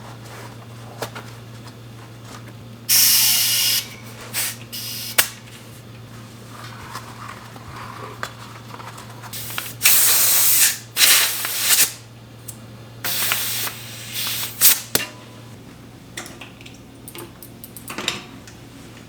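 Several short bursts of hissing spray, a second or less each, with small clicks and taps in between.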